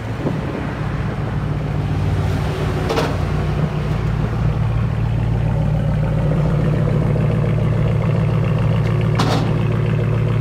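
Ram 1500's 5.7 L Hemi V8 running steadily at low revs through a straight-piped true dual exhaust with an X-pipe and quad tips, no mufflers, giving a deep, even rumble. It grows a little louder about two seconds in.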